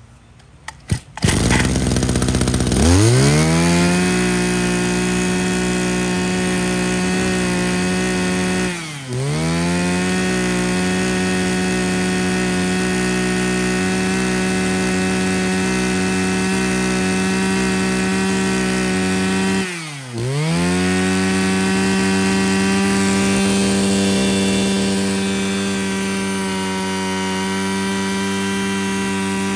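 Mitsubishi TL23 brush cutter's 23cc two-stroke engine being pull-started. It catches about two seconds in and revs up to a steady high speed. Twice the throttle is dropped and reopened, and the engine sags and climbs back each time.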